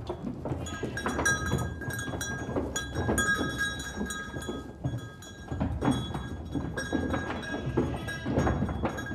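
Livestock bells clinking and ringing over and over as a herd moves, over an irregular low clatter of hooves and shuffling.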